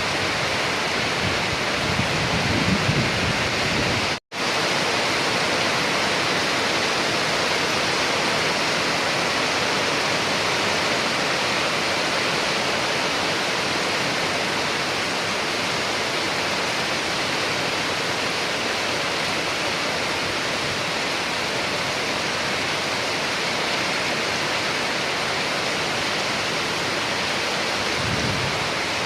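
Steady heavy rain falling, an even hiss, with a low rumble a couple of seconds in and again near the end. The sound drops out for a split second about four seconds in.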